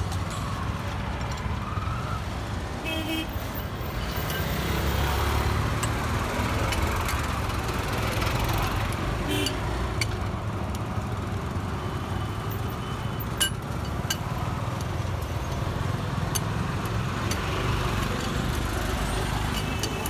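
Steady roadside traffic rumble, swelling as a vehicle passes about five seconds in, with a few sharp clicks.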